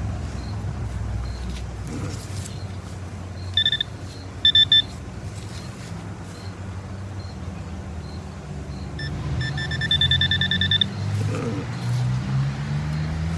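Metal detector beeping: a few short electronic beeps about four seconds in, then a fast string of beeps lasting nearly two seconds later on, over a low steady rumble.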